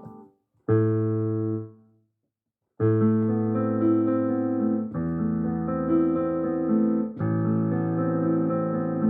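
Background music: sustained piano chords, one struck and fading out, a short silence, then held chords that change every two seconds or so.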